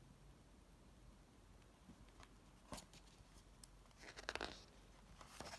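Near silence, with a faint tap and then a brief soft paper rustle about four seconds in, from a hand handling the pages of a hardcover picture book.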